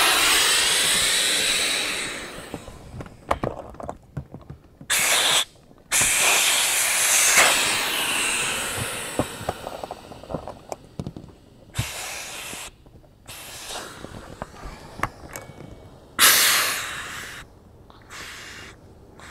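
Air rushing out of a Tobin Sports inflatable boat's valves as they are popped open one after another. It comes as a series of hisses, each starting suddenly; some cut off within a second and others fade over a couple of seconds. Light clicks and knocks of the valves being handled come in between.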